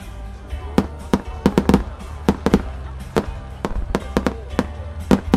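Aerial fireworks shells bursting in a rapid, irregular string of sharp cracks, about three a second, over music playing through loudspeakers.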